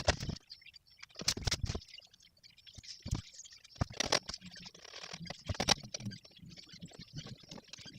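Hand work on a bird feeder: a series of sharp clicks and knocks with some scraping, as parts and tools are handled.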